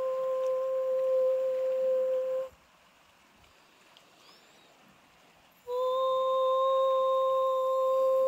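A steady held tone at one pitch that stops about two and a half seconds in, leaving near silence for about three seconds, then comes back at the same pitch, sliding slightly up into it.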